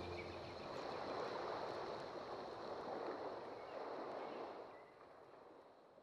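Faint, even rushing noise with no musical tones, left over as the track's music ends, fading out to silence near the end.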